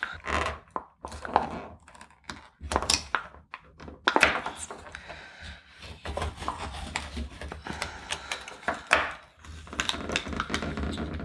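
Foil lid being picked at and peeled off a plastic sensor pack held on a tabletop: irregular crinkling, crackling and clicks, with dull knocks of the pack against the table. The lid is stuck on firmly and comes away in stages.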